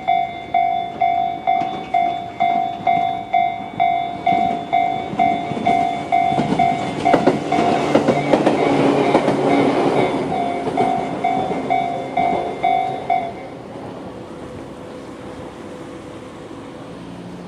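Japanese level-crossing electronic warning bells (Tobu 'sound C' on both sides) ringing at about two strokes a second while a Tobu 10000-series electric train passes over the crossing, loudest around the middle, with wheels clattering over the rail joints. The bells cut off suddenly about 13 seconds in, once the train has cleared.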